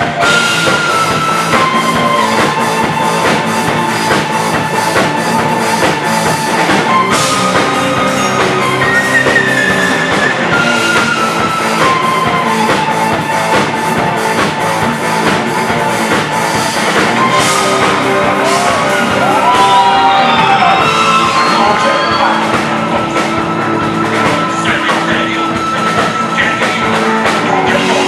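Live rock band playing loudly: drums, electric bass and guitar, with a keyboard holding long sustained notes that step from pitch to pitch.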